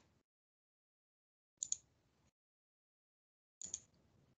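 Near silence broken by two quick pairs of computer clicks, about two seconds apart.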